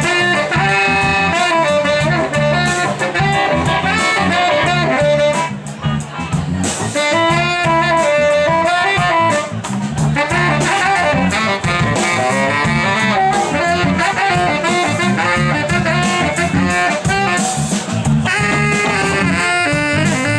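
Live band playing, with horns led by saxophone carrying the melody over a steady beat.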